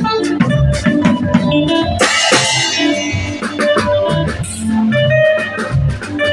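A band playing: guitar and drums over bass and an organ-like keyboard, with a crash about two seconds in.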